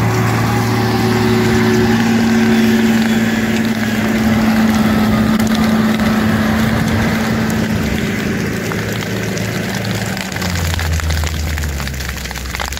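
Case W20F wheel loader's diesel engine running close by as the machine moves over dirt, with a rough crunching of soil and debris under its tyres and bucket. About ten seconds in, the engine note drops lower.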